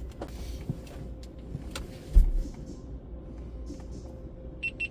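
Steady low hum of in-bay automatic car wash machinery heard from inside the car, with scattered small clicks. There is a single loud thump about two seconds in, and three short high beeps near the end.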